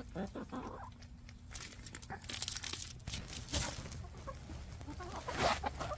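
Backyard hens clucking, with several short bursts of rustling and scratching noise.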